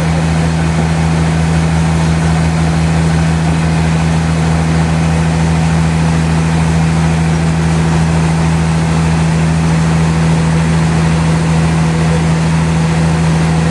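Sawmill's engine running steadily at a constant speed, with a low even drone and no change in pitch or load.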